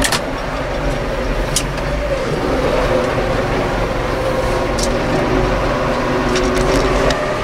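Tractor's diesel engine running steadily at low revs, about 1000 rpm, heard from inside the cab as it drives slowly carrying a round bale on the front loader. A few sharp clicks sound over it: near the start, at about one and a half and five seconds, and in a cluster just after six seconds.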